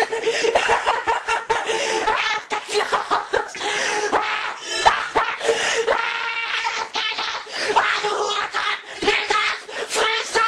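Cartoon wolf's voice laughing, a long run of laughs mixed over other busy soundtrack audio.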